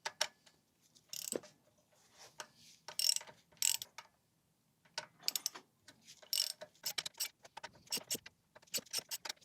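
Socket ratchet clicking in short bursts of rapid clicks with brief pauses between, as bolts at the flywheel end of an engine are loosened a quarter turn each in sequence.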